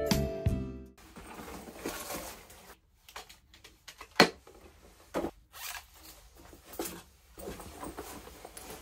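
Handling noises of clothing and a cloth tote bag, rustling with a few sharp clicks, the loudest about four seconds in. A strummed guitar tune ends in the first second.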